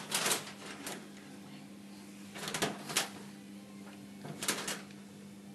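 Handling noise: three short clusters of clicks and rustles, at the start, around two and a half to three seconds in, and about four and a half seconds in, over a faint steady hum.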